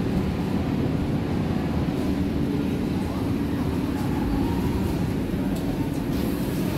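Berlin U-Bahn F-type train at the platform, a steady low rumble and hum of the train and its equipment in the underground station.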